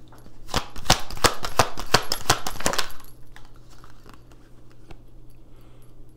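A deck of tarot cards being shuffled by hand: a quick run of sharp clicking snaps for about two and a half seconds, then it stops.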